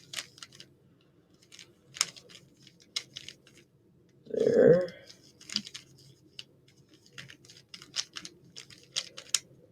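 3x3 Rubik's cube being turned by hand: irregular runs of quick plastic clicks and clacks as the layers snap round.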